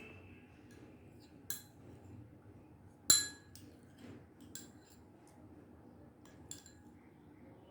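A spoon clinking against a dish: two ringing clinks, a lighter one about a second and a half in and the loudest about three seconds in, among a few lighter taps.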